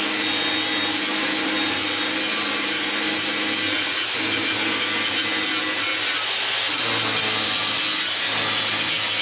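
DeWalt 7-inch angle grinder grinding steel: the disc runs against the metal in one steady, loud grind over the motor's hum.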